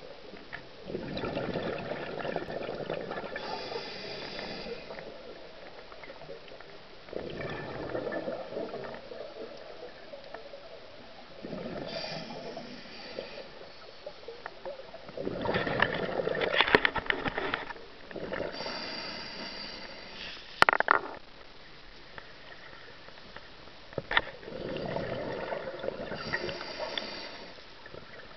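Scuba diver breathing through a regulator underwater: bursts of exhaled bubbles, each followed by the hiss of the next breath, repeating every several seconds. One sharp knock about two-thirds of the way through.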